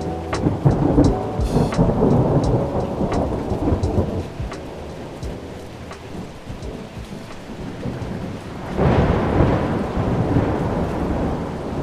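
Thunder rumbling over steady rainfall, with scattered raindrop clicks. The rumble swells at the start, dies down through the middle, and a second roll of thunder builds about nine seconds in.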